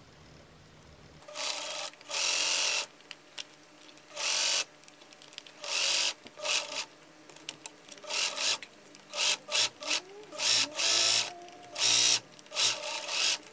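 Electric domestic sewing machine stitching a hem in over a dozen short runs, most under a second long, starting about a second in. Each run starts and stops under foot control, and once the motor's pitch rises as it speeds up.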